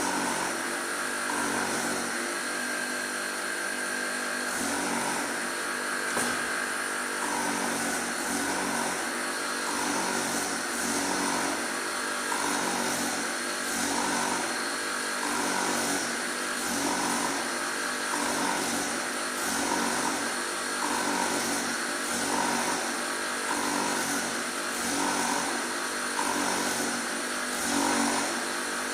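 Surface grinding machine running: a steady motor and wheel whine that swells and fades about once a second.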